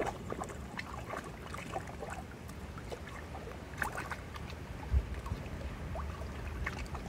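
Small splashes and water lapping as a dog wades through a shallow, reedy pond, with scattered light sloshing throughout. A low rumble of wind on the microphone runs beneath.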